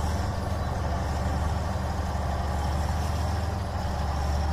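A steady low mechanical hum, like an engine idling, holding the same level throughout.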